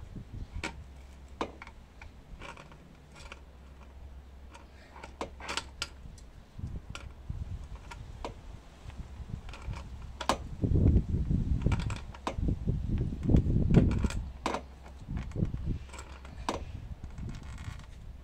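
Scattered metallic clicks and taps of a wrench or pliers working on a plastic water-filter fitting as it is tightened. Louder low rumbling knocks come from about ten to fourteen seconds in.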